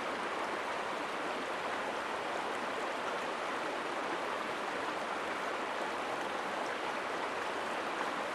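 Shallow river running over rocks: a steady rush of water.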